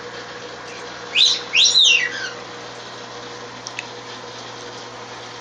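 Parakeet chirping: a few loud, quick whistled calls that sweep down in pitch, about a second in, over a steady low hum.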